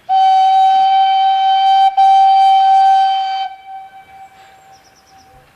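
Steam whistle of a WWII Kriegslok steam locomotive blown in a long, loud blast at one steady pitch, broken for a moment about two seconds in, then cut off at about three and a half seconds and dying away.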